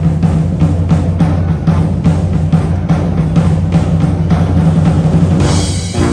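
Band music: drums beat a steady pattern of about three to four strokes a second over a sustained low bass line. About five and a half seconds in, a cymbal crash leads into the brass entrance.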